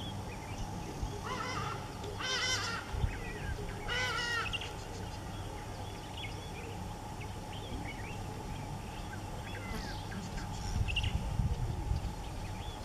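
Birds calling: a few harsh, wavering calls about one to four seconds in, then scattered short chirps, over a steady low rumble that swells briefly near the end.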